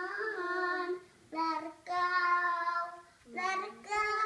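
A young child singing unaccompanied, holding notes of about a second each between shorter ones, with brief breaks between phrases.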